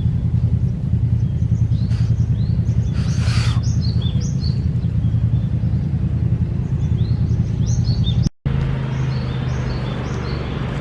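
Lively chorus of small birds chirping, many short high calls overlapping, over a steady low rumble. A brief hiss of noise comes about three seconds in, and the sound drops out for a moment just past eight seconds.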